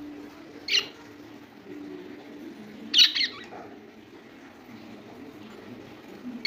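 Pet budgerigars giving short, sharp chirping calls: one about a second in, a quick double call around three seconds, and another at the very end.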